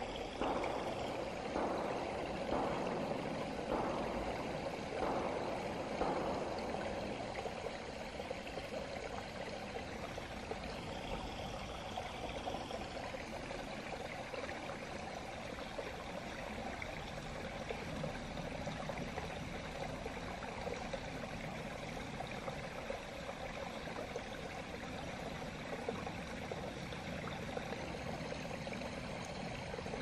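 Small woodland stream running, a steady rushing and babbling of water, with louder surges every second or so during the first few seconds.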